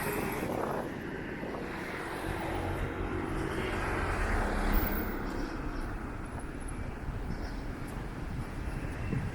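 City outdoor ambience: a steady rumble of road traffic and engines that swells a little toward the middle and then eases.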